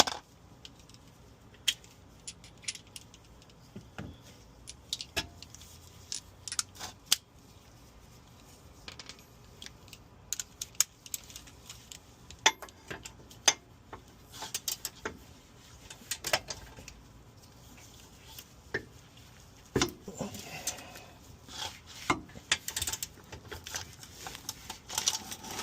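Hand tools clinking on metal: a socket wrench with an extension being fitted and worked on the 17 mm bolts of a rear wheel hub, giving scattered sharp metal clicks and short rattles at irregular times.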